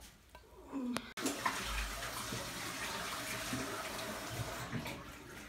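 Steady hiss at a gas stove with a frying pan of omelette mixture on it. It starts suddenly about a second in and dies away near the end.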